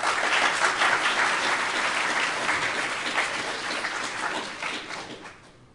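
Audience applauding, the clapping thinning and fading out near the end.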